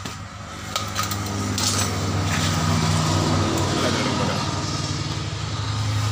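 A motor running steadily with a low, even hum and a faint hiss on top.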